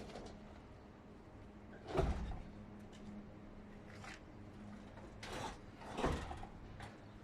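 A few scattered knocks and clunks over a faint steady hum, the two loudest about two seconds in and about six seconds in, like parts or tools being handled during work on a heavy-vehicle battery.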